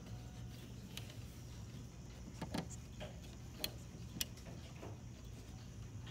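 Antique German time-only pendulum wall clock ticking, with a few sharper clicks standing out between about two and four and a half seconds in.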